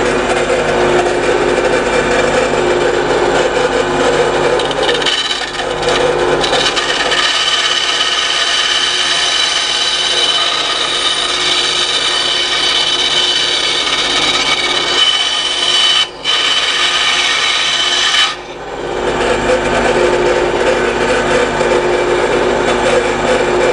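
Benchtop band saw running, its blade cutting a small piece of brass sheet. The harsh cutting noise starts about five seconds in and lasts about thirteen seconds, with a brief break near sixteen seconds. Before and after the cut the saw runs freely with a steady hum.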